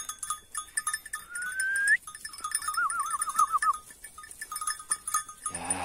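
Kıvırcık sheep grazing close by, tearing and crunching grass in quick, irregular bites. Partway through, a whistle rises and then warbles for about a second, and a sheep starts to bleat near the end.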